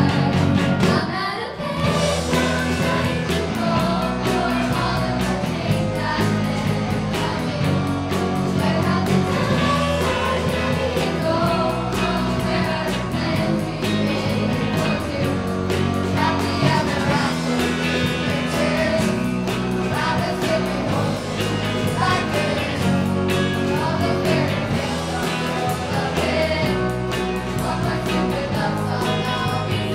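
Live rock band playing, with drums, electric guitars and keyboard, while young lead singers and a children's choir sing a pop song.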